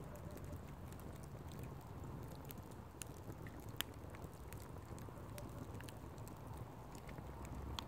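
Wood fire crackling: sharp, irregular pops over a low steady rumble, the loudest pop a little under four seconds in.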